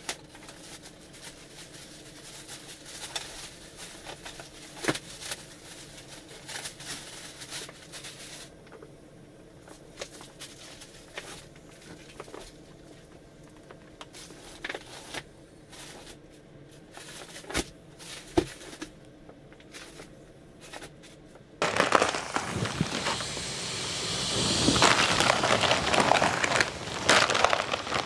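Plastic mattress wrapping crinkling and crackling as it is handled, in scattered quiet crackles at first. About three-quarters of the way through it turns abruptly into loud, continuous crinkling as the plastic is pulled off the mattress.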